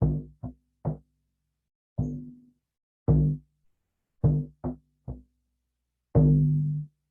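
Hand drum struck slowly, with a quick run of three beats at the start, single beats about two and three seconds in, another run of three a little after four seconds, and a longer-ringing beat near the end. Each beat is a deep, pitched boom that dies away.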